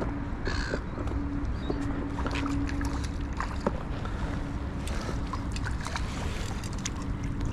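Water lapping and splashing with wind rumble on the microphone, and many small clicks and knocks scattered through it, while a hooked rainbow trout is played in and landed. A faint steady hum comes and goes.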